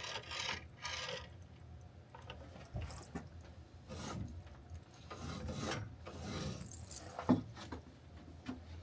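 Miter saw being moved and checked by hand after a blade change: irregular scraping and rubbing of its parts, with a few light knocks, and no motor running.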